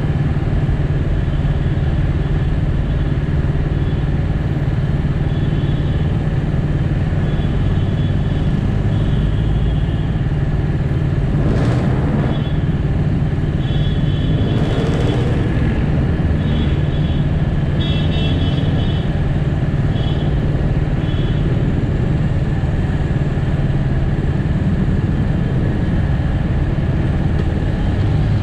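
Bristol 250 Classic motorcycle engine running steadily at idle in slow traffic, with surrounding road traffic noise. Two brief rushes of passing-vehicle noise come about twelve and fifteen seconds in.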